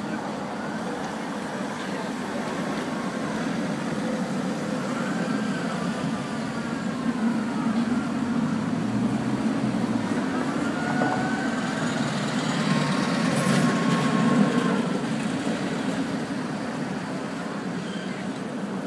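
Tatra T3 tram passing on street rails, its motors whining in rising and falling tones over a steady low rumble. It grows louder to a peak about fourteen seconds in, then fades as it moves away.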